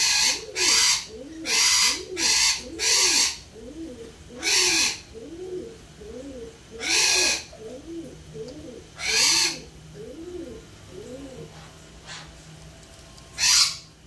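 Harsh, loud squawks from caged parrots: a quick run of about six at first, then single squawks every two seconds or so. Under them runs a steady series of low, hooting coos, about two a second, which stops near the end.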